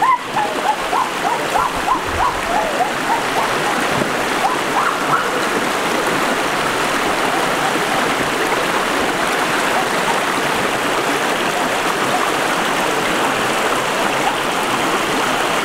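Shallow rocky stream rushing steadily over stones, with splashes of bare feet wading through the water at the start. A run of short, repeated high chirping calls sounds over the first five seconds or so.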